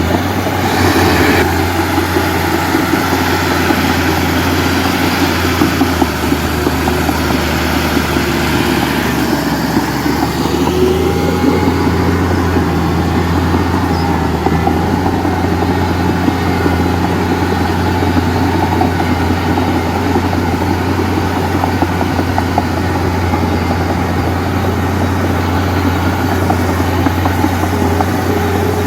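Heavy diesel engine running steadily with a deep, constant hum, its sound shifting a little during the first ten seconds.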